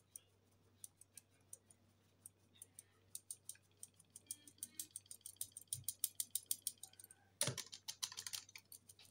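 Quiet, rapid light ticking of a metal mesh flour sieve being knocked against the hand to shake wholegrain flour through. The ticking quickens and grows louder about three seconds in, with a louder knock about seven and a half seconds in.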